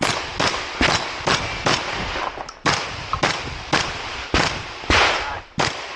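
A rapid string of shotgun shots in a practical-shooting (IPSC) stage, about two shots a second, each with a short echoing tail.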